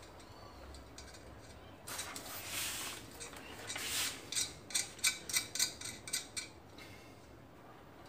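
Small parts being handled and fitted on a ceiling fan's white plastic bottom plate: a scraping rustle about two seconds in, another near the middle, then a quick run of sharp clicks, roughly three a second.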